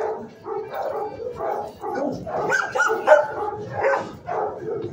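Several kennelled shelter dogs barking and yipping in quick, overlapping bursts. The din peaks around three seconds in.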